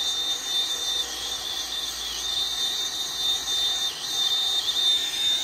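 Hand-held gas torch burning with a steady hiss as its flame heats a rusted muffler seam. A steady high tone runs through the hiss.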